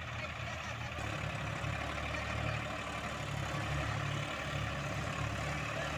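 Diesel engines of three tractors (an Eicher 380, a Powertrac Euro 47 and a John Deere 5105) running together as they work the field, a steady low engine drone that grows a little louder about a second in.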